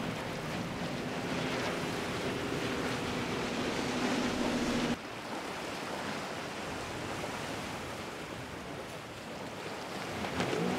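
Faint hum of a passing motorboat's engines over a steady wash of water and wind; the engine hum stops abruptly about five seconds in, leaving the wave and wind noise.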